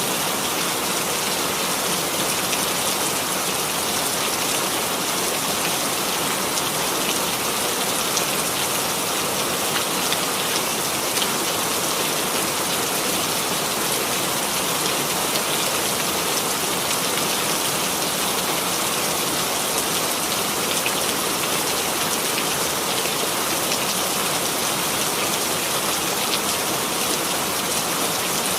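Steady rain falling, an even hiss with fine scattered drop patter on a surface.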